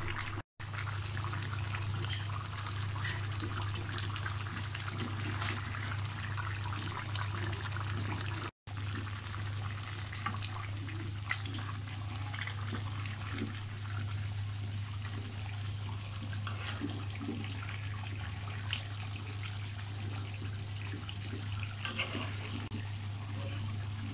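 Beef and cabbage curry bubbling and sizzling in an iron karahi, a steady hiss full of small pops, over a steady low hum. Scattered light clicks run through it, and the sound drops out briefly twice.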